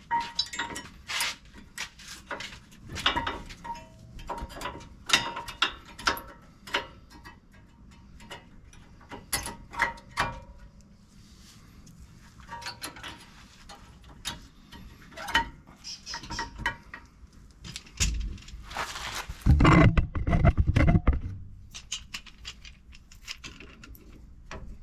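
Irregular metallic clicks, clinks and knocks of brake pads and caliper hardware being handled and fitted on a rear disc brake. About three quarters of the way in comes a louder, deeper rough noise lasting about two seconds.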